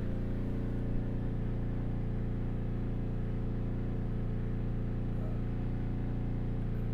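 Steady low hum with a stack of evenly spaced overtones, unchanging throughout.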